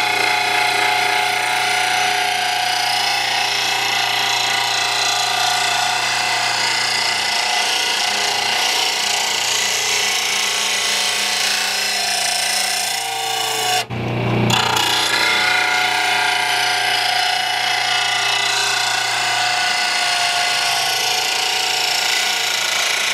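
Oregon 88-025 1/3 HP blade grinder's wheel grinding the edge of an old, dull steel lawn mower blade to sharpen it. There is a steady rasping grind over the motor's constant hum, with a brief break a little past halfway.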